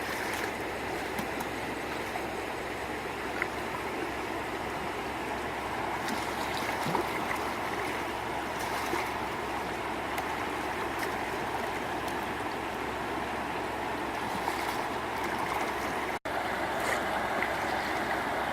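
Steady rush of flowing water, with a few faint ticks over it; the sound cuts out for a split second about three-quarters of the way through.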